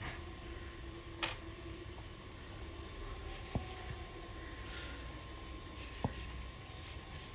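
Small handling sounds over a steady hum: a few short clicks and brief bursts of light rubbing or brushing.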